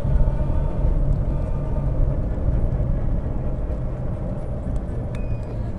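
APtrikes125 mini jeep driving at a steady pace: a steady engine and road rumble heard from the open driver's seat.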